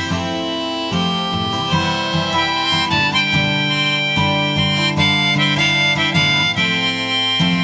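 Instrumental break of a song: a harmonica playing a melody of held notes over acoustic guitar accompaniment.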